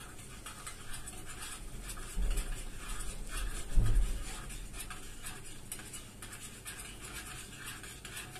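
Teaspoon stirring Turkish coffee in a small metal cezve, scraping against the inside of the pot in quick repeated strokes. Two low thumps come about two and four seconds in.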